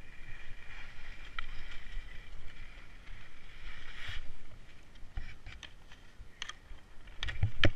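Skis scraping and sliding over packed, tracked-up snow, followed by a run of sharp clicks and knocks from skis or poles, loudest near the end.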